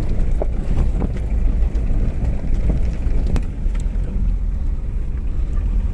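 Strong wind buffeting the microphone: a loud low rumble that swells and eases.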